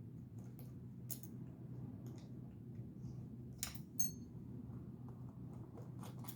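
Faint, scattered clicks and taps of small knife parts and a driver being handled as a Microtech MSI folding knife is taken back apart, with one brief metallic ting about four seconds in. A low steady hum runs underneath.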